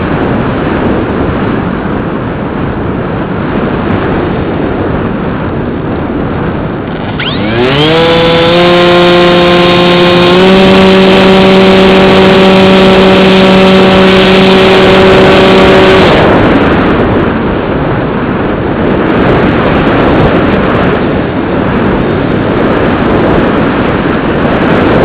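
Airflow rushing over the onboard camera of a Bixler 2 RC foam plane in flight. About seven seconds in, its electric motor and propeller spin up with a quickly rising whine, then run at a steady pitch, stepping up slightly once. About eight seconds later the motor cuts off and only the wind rush is left as the plane glides.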